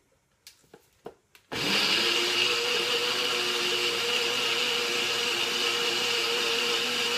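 Personal bullet-style blender pressed down on its motor base, starting about a second and a half in after a few light clicks and then running steadily, pureeing soaked dates and spices into a thick marinade.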